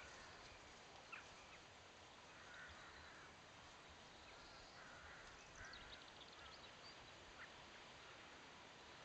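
Near silence: faint outdoor ambience with a few faint, short distant calls.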